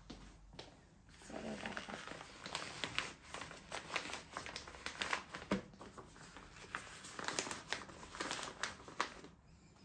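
Rustling and crinkling of a waterproof coverall weaning bib as its sleeves are tugged and straightened on a baby's arms, with scattered small clicks. It starts about a second in and stops just before the end.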